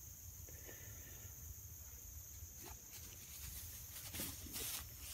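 Rhodesian Ridgeback snuffling with its nose in tall grass, soft rustling at first, with a cluster of louder sniffs and rustles near the end.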